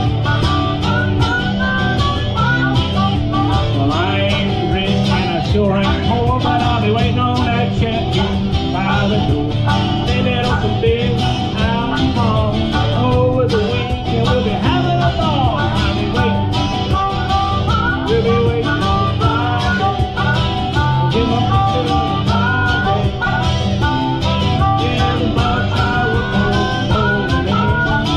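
Live country-style band music: acoustic guitar strumming with keyboard and a box drum keeping a steady beat, and a melody line running over it.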